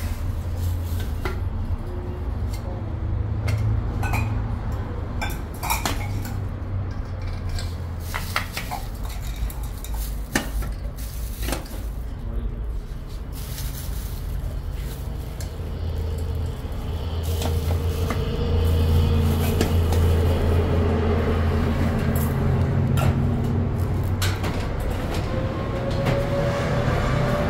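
Scattered sharp clicks and knocks over a steady low hum, the knocks fewer and the hum stronger in the second half.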